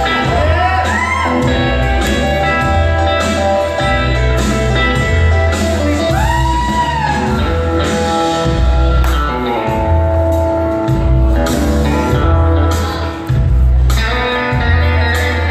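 Blues music with guitar over a stepping bass line, with a sliding bent note about a second in and again about six seconds in.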